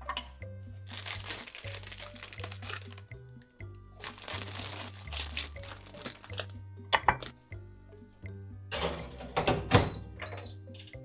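Plastic sandwich wrapper crinkling in two long stretches as a sandwich is pulled out of it, over background music with a steady bass line. A few sharp knocks come near the end, the loudest about ten seconds in.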